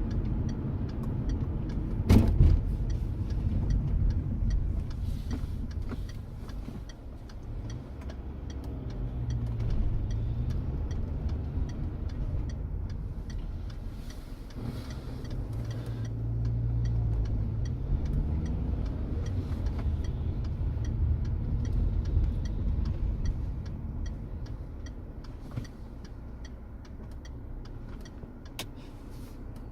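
Car on the move heard from inside the cabin: steady engine and road rumble, the engine note rising and falling as it speeds up and eases off. A sharp thump comes about two seconds in.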